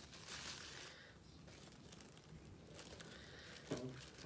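Faint rustling and crinkling of tissue paper being unwrapped by hand, mostly in the first second, then quieter. A brief voice-like sound comes near the end.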